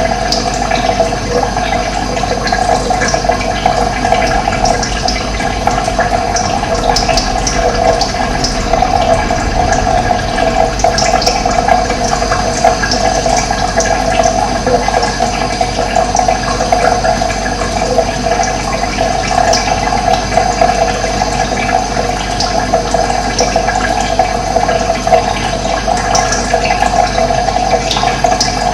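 Running water rushing steadily, with many brief high-pitched flicks over it.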